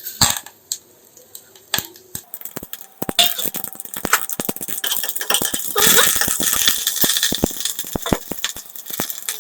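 Tempering spices crackling and spitting in hot sesame oil in a pan, with a metal spoon clinking against it. A few separate clinks come first; about three seconds in a dense crackling hiss starts and keeps going.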